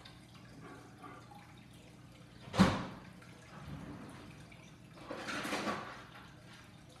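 A single sharp knock about two and a half seconds in, followed around five seconds in by a short rush of noise lasting about a second.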